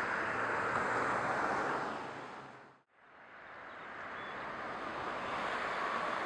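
Ferrari FF's 6.3-litre V12 idling steadily under the open hood. The sound fades out to silence about three seconds in and fades back up.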